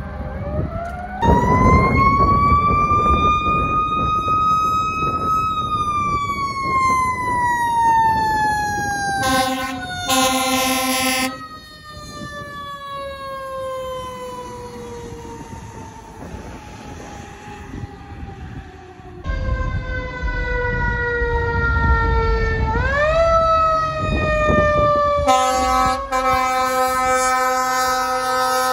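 Fire engines' mechanical Federal Q sirens winding up, then slowly coasting down over several seconds, and winding up again, with truck engine rumble underneath. An air horn blasts about a third of the way in, and again for the last few seconds.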